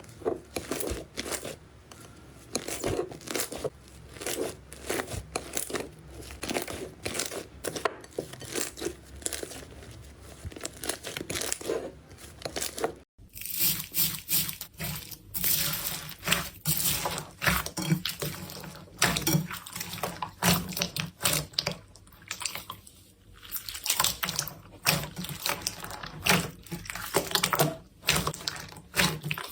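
Slime being squeezed, pressed and stretched by hand, making dense, irregular crackling and popping clicks. About 13 seconds in the sound breaks off abruptly and a different slime clip starts, with similar clicking.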